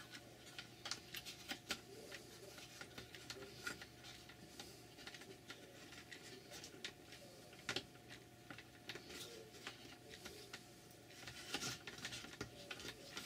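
Faint, scattered clicks and taps of thin wooden ribs being handled and pressed into the slots of a plywood hull jig, over a steady faint hum.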